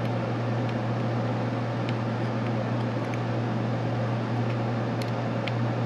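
A steady low hum with hiss over it, and about six faint light ticks of a utility-knife blade being worked under the edge of a CPU's metal heat spreader.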